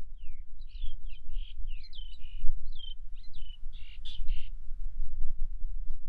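A roller giving a fast run of harsh, crow-like calls, many short notes, several sliding down in pitch, which stops about four and a half seconds in. A steady low rumble runs underneath.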